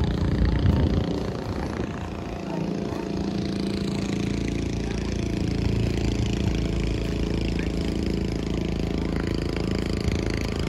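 Outdoor neighbourhood ambience: a steady engine hum with faint background voices.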